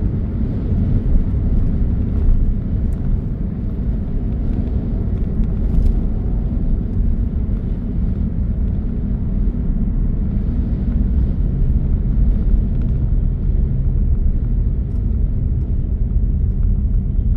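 Steady low rumble of strong dust-storm wind buffeting a car, heard from inside the cabin with the windows up, together with the car's own running noise.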